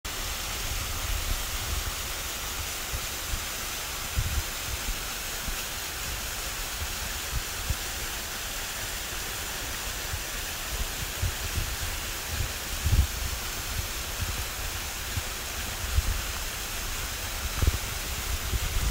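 Small mountain spring water trickling and splashing from a rock face and a bamboo spout onto stones: a steady hiss. Occasional low thumps sound under it.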